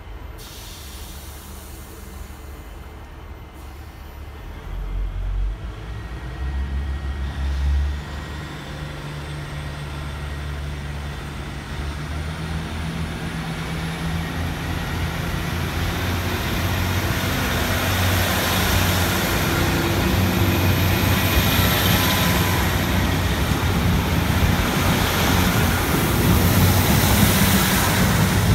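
Diesel multiple unit pulling away from the platform: its engines open up about five seconds in, then a high whine rises in pitch and the engine drone and wheel noise grow steadily louder as the train accelerates past.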